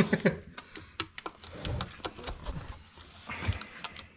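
Irregular light clicks and scrapes of a screwdriver and hand tools working on a dismantled UTV transmission case, several a second.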